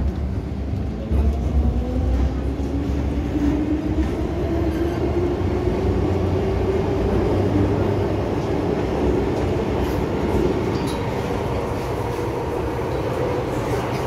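MTR Island Line M-Train (Metro Cammell EMU) heard from inside the car as it slows along the platform and stands at the station: a steady low rumble, with a tone slowly rising in pitch through the first half and a few light clicks about ten seconds in.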